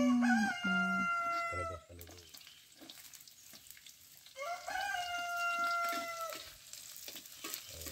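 A rooster crowing twice, each crow about two seconds long and ending in a long held note, the second about four seconds after the first. Under and between the crows, chicken sizzles faintly as it fries in a wok.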